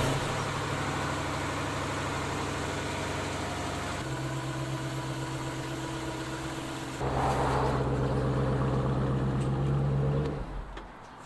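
Car engine idling just after being started, with a steady even note that settles slightly lower about four seconds in. It gets louder again from about seven seconds, then dies away about ten seconds in.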